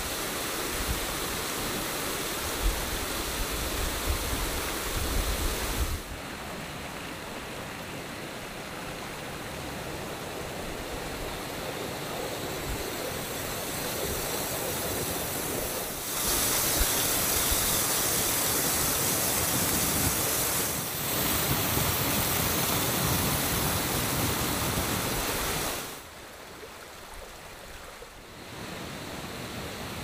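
Water rushing over small waterfalls and stream cascades, a steady rush that jumps in level several times. Wind buffets the microphone with a low rumble for the first few seconds. The rush drops quieter about four seconds before the end.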